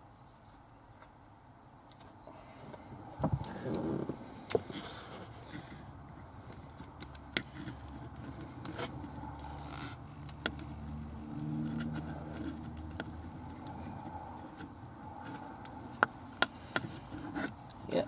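Fabric wiring loom tape being handled and wrapped around a car seat's wiring harness: rustling and scraping with many small scattered clicks and a few sharper knocks.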